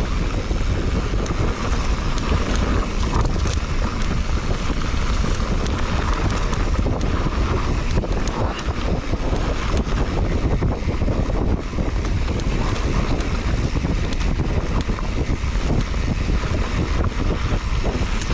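Wind buffeting the microphone over the rumble of a mountain bike riding down a dirt trail, with many small knocks and rattles from the tyres and bike over the rough ground.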